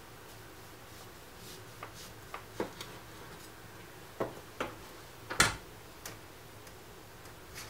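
Irregular light knocks and clicks of lemons and a knife being handled and set down on a plastic cutting board and stone counter, with one louder knock about five and a half seconds in.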